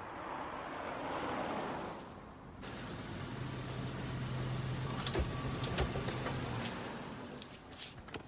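A vehicle running with a rushing noise that swells and then cuts off abruptly about a third of the way in. A steady low hum follows, with a few knocks and clicks.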